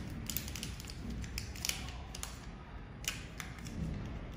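Crinkling and tearing of a small paper-and-plastic packet being opened by hand to take out a new protective lens, with irregular sharp little crackles and clicks.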